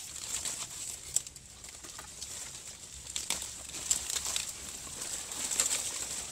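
Knife cutting a Lasia spinosa shoot at its base and pulling it free, with irregular crackles, snaps and rustles of dry leaf litter and stems, over a steady high-pitched hum in the background.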